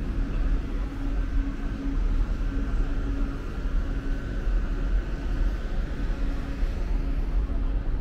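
Steady low rumble of city ambience among tall buildings, with a faint mechanical hum running through it.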